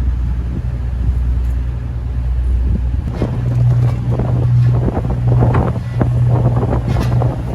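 Low engine drone with wind buffeting the microphone; the drone shifts to a higher pitch about three seconds in, and gusts come and go after that.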